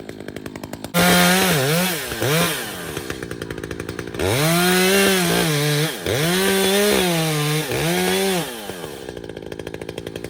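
Gasoline chainsaw revved to full throttle in several bursts, dropping back to a pulsing idle between them and near the end, as it works through a pine tree being felled.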